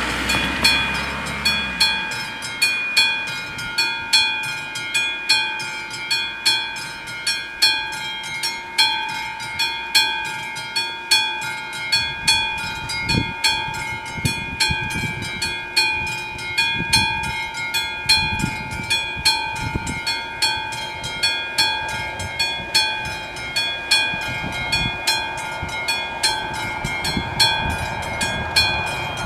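AŽD 71 level-crossing warning bells ringing continuously, several electric bells striking rapidly and overlapping, a sign that the crossing is closed for an approaching train. A car drives past at the very start.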